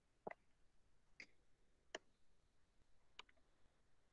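Near silence broken by four faint, short clicks spread over a few seconds from the input device writing on a digital whiteboard.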